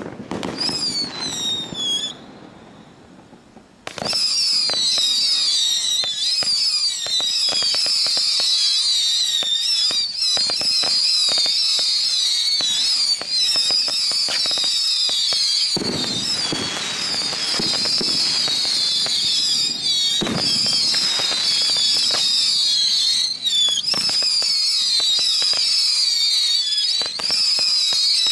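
T-Sky Gatling roman candle firing a rapid stream of whistling shots: shrill whistles that waver and fall, over a constant run of sharp pops. A short burst of falling whistles at the start gives way to about two seconds of quieter sound, then nonstop firing from about four seconds in.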